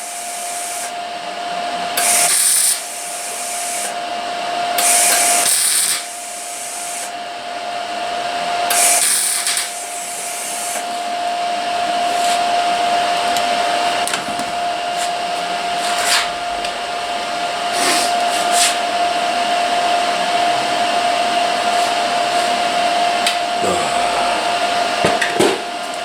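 Welding arc on truck sheet metal, three short bursts of about a second each in the first ten seconds, over a steady fan hum with a constant tone that runs on after the welding stops.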